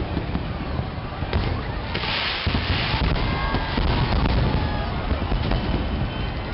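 Large fireworks display: a continuous rumble of overlapping shell bursts and bangs, with a loud hissing crackle about two seconds in.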